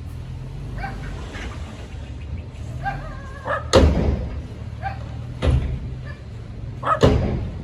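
A dog barking in short calls, several times, over a steady low engine rumble. Three loud knocks come about four, five and a half, and seven seconds in.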